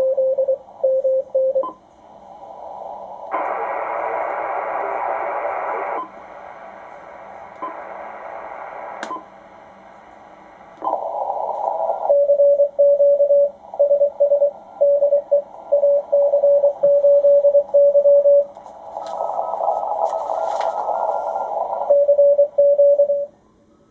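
A Morse code (CW) signal heard through an HF ham transceiver's speaker: a single mid-pitched tone keyed in short and long elements. It alternates with stretches of receiver hiss that changes level in steps.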